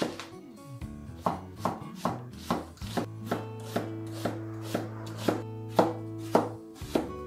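Chef's knife slicing a peeled white onion on a cutting board, each cut ending in a crisp tap on the board, about two a second. Background music plays underneath.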